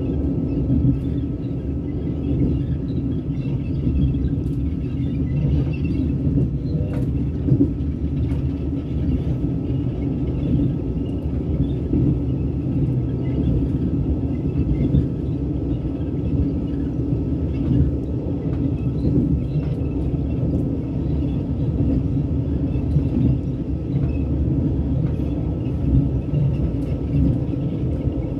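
Steady rumble of a passenger train running at speed, heard from inside the carriage, with a few faint ticks over it.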